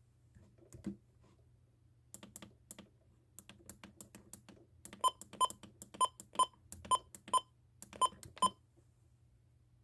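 Clicking of keys or buttons being pressed: a single click about a second in, an irregular run of lighter clicks, then four evenly spaced pairs of louder clicks with a brief ringing tone, stopping about a second before the end.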